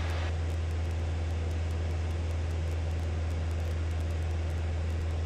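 Light aircraft's piston engine running steadily in flight, heard inside the cabin as an even low hum with noise above it.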